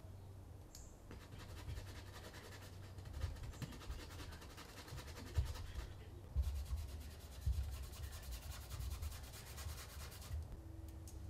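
Oil-paint brush rubbing and scrubbing across canvas in repeated strokes, with a few soft low knocks among them.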